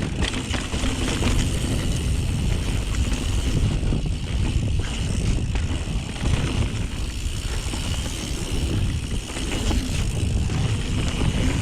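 YT Jeffsy full-suspension mountain bike riding down a dirt trail: a steady rumble of knobby tyres on the ground, with frequent small knocks and rattles from the bike over bumps.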